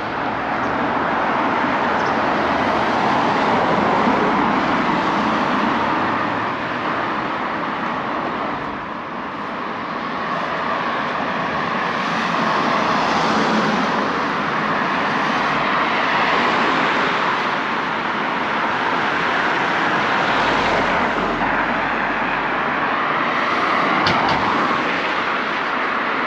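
Road traffic: cars driving past on a street, a steady hiss of tyres and engines that swells and fades as each vehicle goes by.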